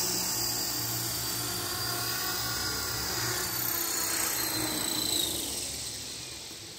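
Electric radio-controlled helicopter (Esky Belt CP with Align carbon main blades) in flight: the high whine of its motor and belt-driven rotor over the whir of the blades. About five seconds in, the whine drops in pitch and the sound fades away.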